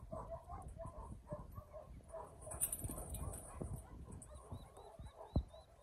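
Faint scuffling and knocking of a tightly packed mob of sheep shifting in a steel yard and race as a working dog pushes them, with one sharper knock about five seconds in. Faint short high cries repeat throughout.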